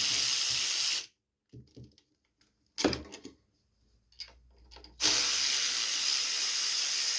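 A loud steady hiss stops abruptly about a second in. For about four seconds only a few faint clicks and knocks of hand tools on the carburetor mounting bolts are heard, then the hiss returns just as abruptly.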